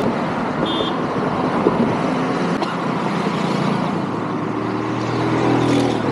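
Road traffic on a highway: a steady hiss of tyres and engines, with one vehicle's engine growing louder and passing close by near the end.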